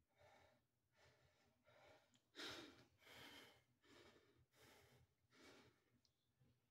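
A man's faint, repeated breaths, about one a second, the strongest about two and a half seconds in.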